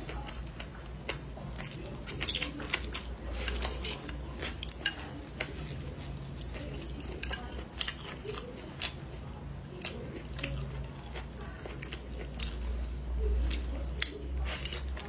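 Close-up eating sounds: chewing and wet mouth clicks from someone eating braised pork rib and green peppers, with scattered sharp taps of chopsticks on the bowl. Near the end there is a louder bite into a whole green pepper.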